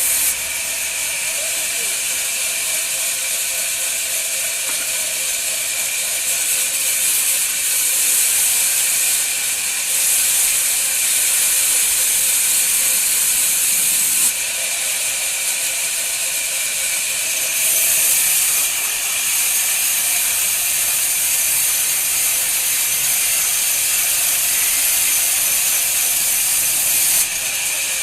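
Woodworking machine cutting wood: a steady, high hissing noise that jumps up or down in level abruptly several times.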